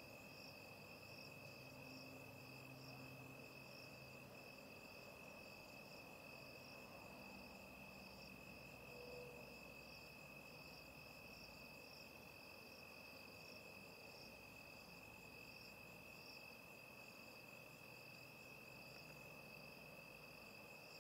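Faint crickets at night: a steady high trill with a higher chirp pulsing evenly over it.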